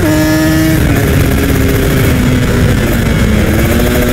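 Kawasaki sport motorcycle engine under way: its pitch drops as it shifts up at the start and again just under a second in, then it runs at fairly steady revs, with wind noise rushing over the microphone.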